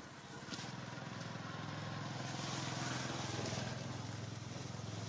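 A motor vehicle's engine running steadily with a low hum. It comes in about half a second in, grows louder toward the middle and eases off near the end.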